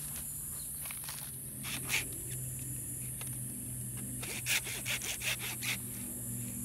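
Folding pruning saw cutting through a dead log, the blade rasping back and forth. A few scattered strokes, then a quick run at about four strokes a second from about four seconds in.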